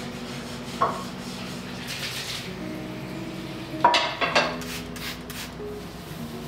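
Dishes and metal cookware clinking and clattering in a kitchen sink during washing up: one sharp clink about a second in, then a louder run of knocks around four seconds in. Soft background music with held notes plays throughout.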